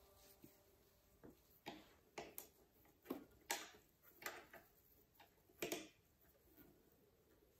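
Faint, irregular clicks and taps of the monitor's plastic stand neck and mounting plate being handled and fitted to the back of the monitor, about eight in all, the loudest a little past the middle and near the end.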